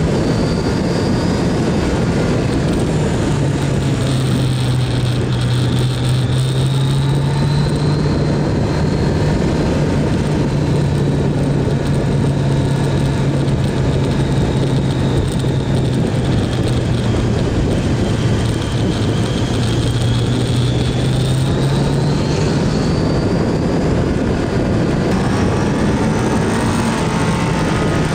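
Kawasaki GPZ900R's inline-four engine running at a steady cruising speed, its pitch holding level and rising a little near the end, under a constant rush of wind noise on the bike-mounted camera.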